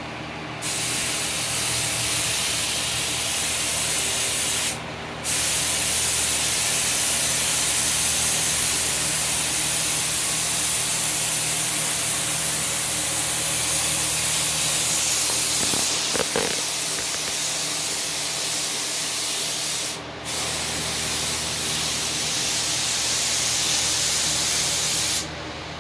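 Paint sprayer hissing steadily in three long passes, with two short breaks about five seconds in and about twenty seconds in, over a steady low machine hum.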